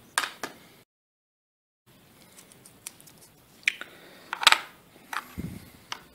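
Scattered light clicks and taps as a laptop's mini PCIe Wi-Fi card is handled and pushed into its slot in the open bay, with the sharpest click about halfway through and a low thump near the end. The sound cuts to dead silence for about a second near the start.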